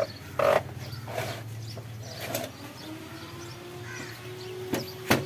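Hands handling the plastic casings of used split air-conditioner indoor units, with two sharp knocks near the end. A few short harsh bird calls, like crows cawing, sound in the first half.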